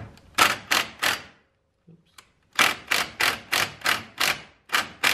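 Ryobi cordless impact wrench blipped in short bursts on a brake caliper bolt, three in the first second and then eight more at about three a second, double-checking that the bolt is tight.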